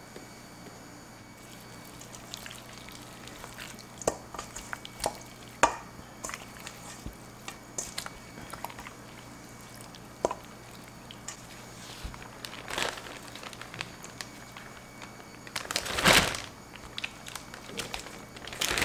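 Hands squishing and turning raw pork ribs in a sticky soy-and-honey marinade in a stainless steel bowl: wet squelches with scattered light clicks. A louder plastic-bag rustle comes twice near the end.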